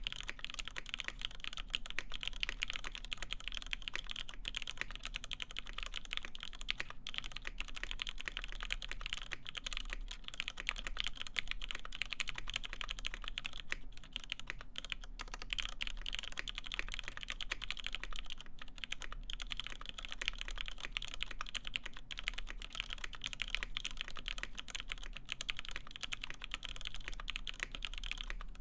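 Continuous fast typing on a mechanical keyboard with lubed vintage Cherry MX Black linear switches, a full FR-4 plate and PBT keycaps: a steady stream of dense key clacks.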